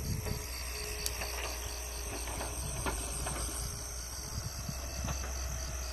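Insects chirping in a steady, even rhythm of about six high-pitched pulses a second, over a low steady rumble and a few faint clicks.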